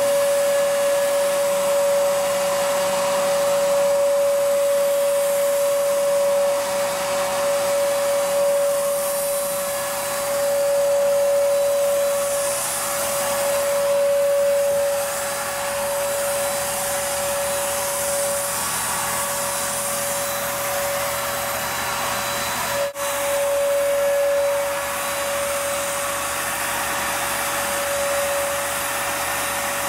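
HVLP turbine paint sprayer running steadily while spraying Plasti Dip: a constant motor whine over a rush of air, with one brief break about two-thirds of the way through.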